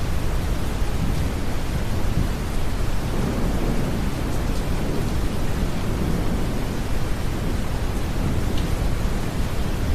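Steady, deep brown noise blended with rain and the low swell of distant thunder, with no sharp thunderclap.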